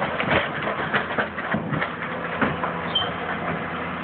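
Tracked hydraulic excavator working: a steady engine drone with irregular knocks and clatter as the boom swings and the bucket lifts.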